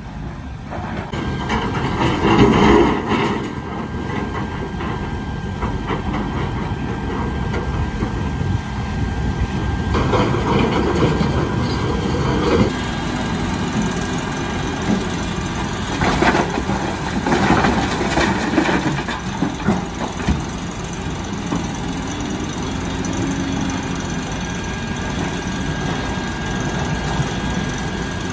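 Heavy diesel engines of a Volvo crawler excavator and a Shacman dump truck running steadily, with broken rock clattering and thudding into the truck's steel bed in three bouts as buckets are emptied.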